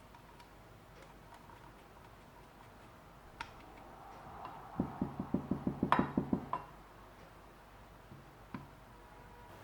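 Kitchenware clattering: a quick run of about a dozen knocks, roughly seven a second for under two seconds, about halfway through, with a sharper clink among them. A single click comes before the run and another after it.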